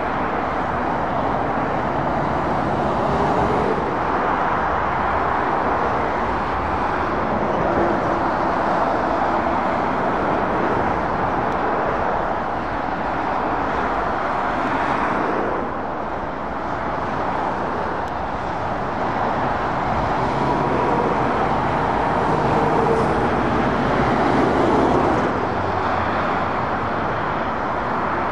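Steady road traffic of heavy lorries and cars passing on a dual carriageway: continuous tyre noise with engine hum that swells as each vehicle comes close, loudest about three quarters of the way through.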